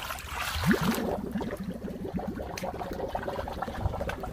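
Bucket of water dumped over a flat-roof drain plugged with a paper cup: a sudden splash at the start, then gurgling as the water pools over the drain, for a flood test of the drain.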